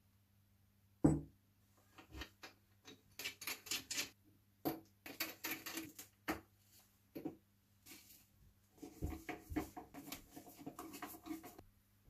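Drum hardware being fitted by hand to a bare wooden snare shell: a knock about a second in, then small metal clicks, rattles and scrapes as lugs and screws are handled and put in place, busiest near the end.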